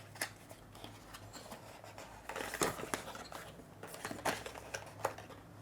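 Cardboard packaging being handled: irregular scrapes, rustles and light knocks as a charger stuck in the box is worked loose, with louder handling noises about halfway through.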